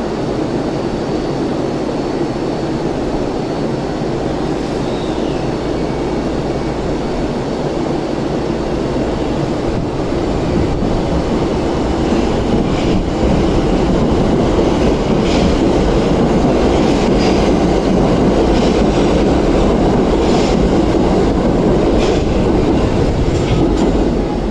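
Tokyo Metro 1000 series subway train pulling away from the platform. It gets louder about halfway through as it gathers speed, with wheels clacking over rail joints.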